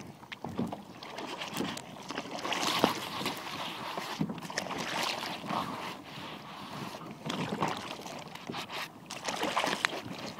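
Sea water sloshing and splashing, with irregular knocks and rustles of gear being handled close to the microphone.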